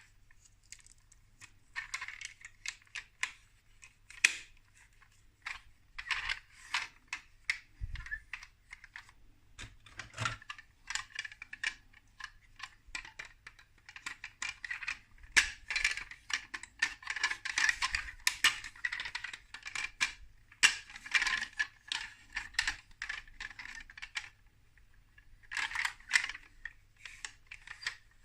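Small plastic building bricks clicking and rattling as they are handled and snapped together, in irregular bursts of quick clicks with short pauses between.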